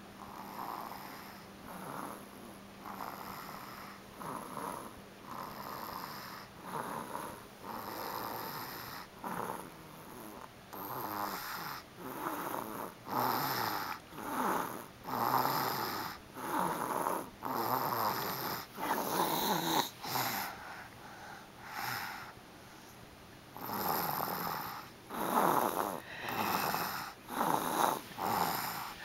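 Snoring in deep sleep: a noisy breath about once a second, getting louder from about a third of the way in.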